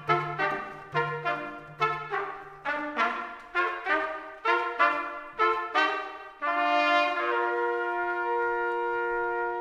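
Brass ensemble playing a run of short, accented chords about twice a second, then holding one long chord from about six and a half seconds in.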